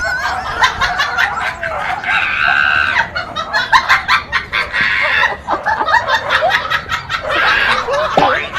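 People laughing in high-pitched bursts, without words.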